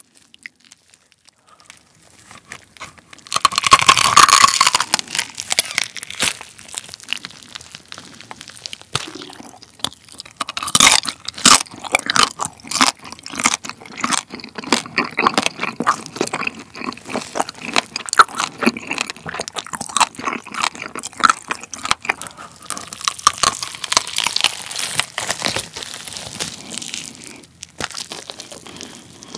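Close-miked biting and chewing of a roasted German pork hock's crispy skin. A loud crackling bite comes about three seconds in, then a long run of crunching and chewing full of sharp crackles. The skin was roasted long enough to go hard.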